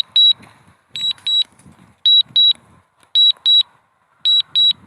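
Drone warning alarm for a DJI Mavic Mini that has lost its connection to the aircraft. It is a high beep-beep, repeated about once a second.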